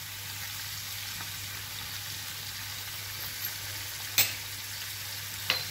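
Squid pieces frying in olive oil in a pan, a steady sizzling hiss, with one sharp click about four seconds in.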